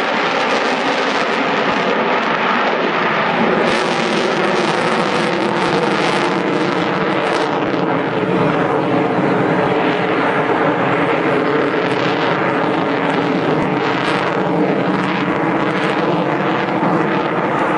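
F-22A Raptor's twin Pratt & Whitney F119 afterburning turbofans heard from the ground as the fighter manoeuvres overhead: a loud, steady rushing jet noise with a low drone of engine tones underneath.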